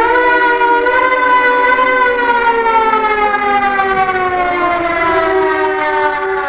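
Civil defense siren wailing loudly, its pitch rising gently for about two seconds and then slowly falling, with a second lower tone sounding alongside.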